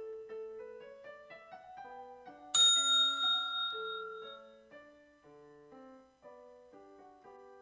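Soft piano music playing, with a single bell ding about two and a half seconds in that rings out and fades over about two seconds. The bell is the timed exam-station signal that tells candidates to move on to the next item.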